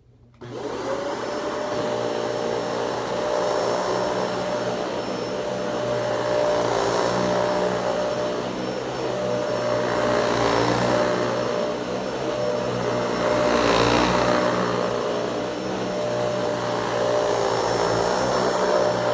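Dyson Ball Animal 2 upright vacuum cleaner switching on abruptly and running. Its motor hum and high whine swell and ease every three to four seconds.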